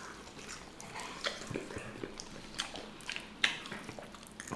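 Close-up chewing and biting of sauced buffalo chicken wings: wet mouth clicks and smacks, with a sharper click about three and a half seconds in. There is little crunch, as the wings are not super crispy after being sauced and put back in the oven.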